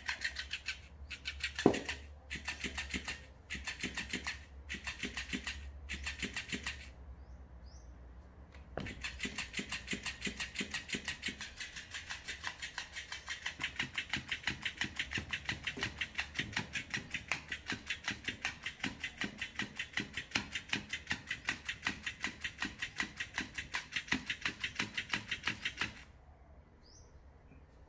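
Electric flopping-fish cat toy, its motor-driven tail flapping on a wooden tabletop. For the first seven seconds it goes in short bursts with brief pauses. After a short lull it runs in a fast, steady beat and stops suddenly near the end.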